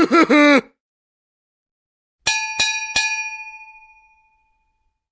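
A bell-like ding sound effect: three quick metallic strikes about a third of a second apart, ringing out and fading over a second and a half. Just before it, a short pitched voice-like effect with wobbling tones cuts off.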